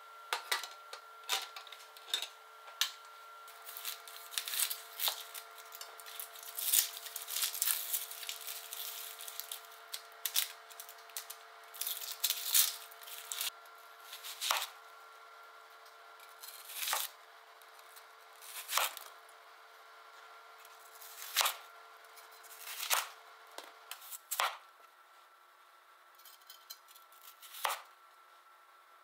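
Kitchen knife cutting onion and potatoes on a cutting board: a stretch of dense crackly cutting and handling, then single sharp knocks of the blade meeting the board every second or two. A faint steady hum sits underneath.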